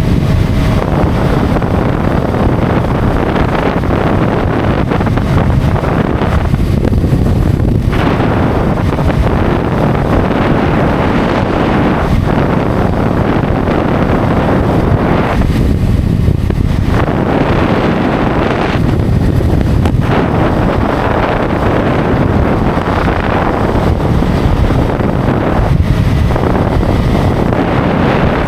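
Heavy wind noise on the microphone of a motorcycle riding at highway speed, over engine and road noise. It is steady and loud, easing briefly a few times.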